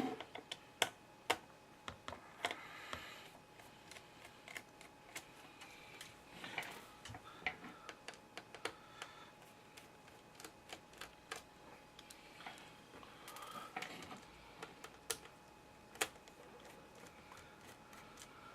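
Small screwdriver backing out the four screws that hold a laptop's LCD panel in its lid: irregular light clicks and ticks of the driver tip, the screws and handling of the plastic lid.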